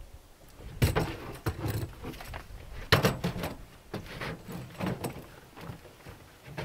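Knocks and thuds of someone moving around a pickup truck bed and sitting down in a folding camp chair: a handful of footfalls and bumps, with handling noise from the chair and clothing between them.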